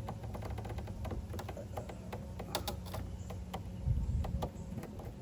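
Hand rivnut tool being squeezed slowly, giving a run of irregular small clicks as it crushes an M5 rivnut into place, with a dull low thud about four seconds in.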